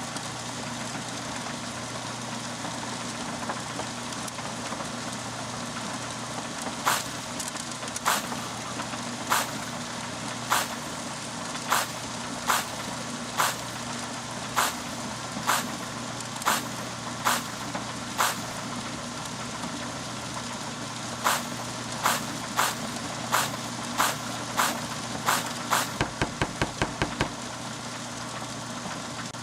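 A small motor running steadily with a constant hum, with sharp clicks or taps about once a second through most of it and a quick run of clicks near the end.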